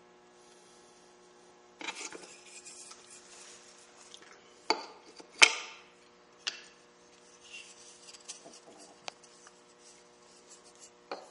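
Rubbing and scraping with several sharp knocks of wood on wood, the loudest about five and a half seconds in, as a wooden tic-tac-toe board and its pegged wooden game pieces are handled.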